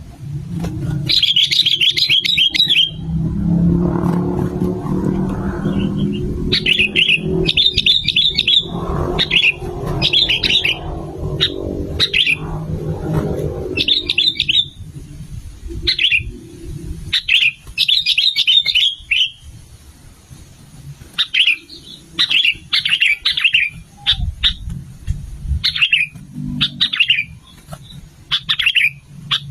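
Sooty-headed bulbuls calling in short, repeated chattering phrases, one after another with brief gaps. A low rumble runs under the first half and fades out.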